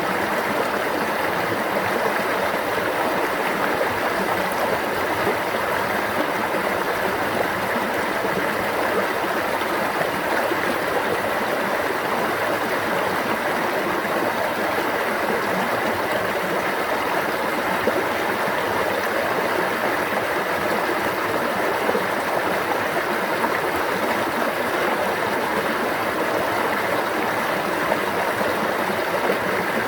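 Water flowing steadily in a stream, an even rush and babble that does not change.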